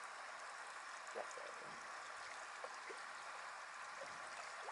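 Small, shallow creek trickling over rocks as a faint, steady rush of water, with a few faint short sounds over it.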